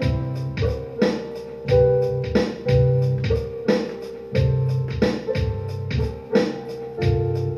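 Electric bass improvisation over layered, repeating loops of the same bass: held low notes and higher sustained chord tones cycling through a chord progression, with sharp percussive hits in a steady rhythm.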